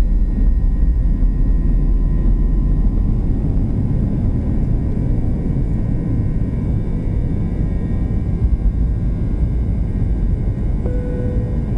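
Airbus A319 jet engines heard from inside the cabin during takeoff: a loud, steady low rumble with faint whining tones, the engine noise and shaking that alarmed those on board. A short steady tone sounds near the end.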